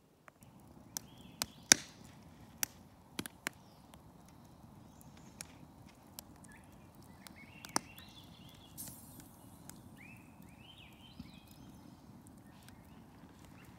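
Wood fire crackling, with sharp, irregular pops from a burning log, loudest in the first few seconds. Birds call in the background, with short falling chirps in the second half.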